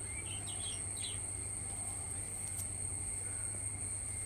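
Garden ambience: a steady high-pitched insect trill throughout, with a few short bird chirps in the first second.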